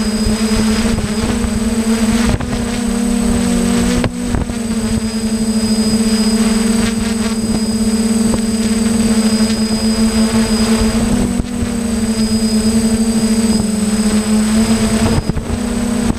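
Hexacopter's electric motors and propellers buzzing steadily, heard from the camera on board, the pitch shifting slightly now and then as the motors adjust.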